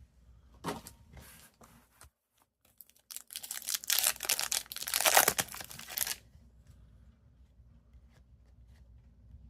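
A trading card pack's wrapper being torn open and crinkled, in a loud burst lasting about three seconds, starting about three seconds in.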